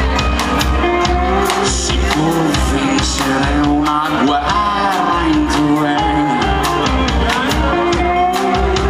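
Rock band playing live: drum kit keeping a steady beat, electric guitars and bass, with a male singer's voice.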